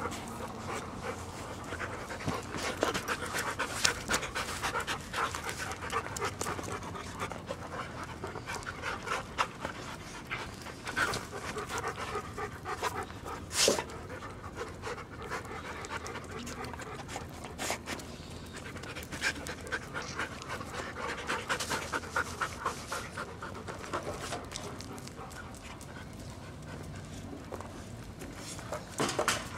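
Siberian Husky panting close up, a fast, even run of breaths that keeps going with short pauses. There is one sharper knock about halfway through.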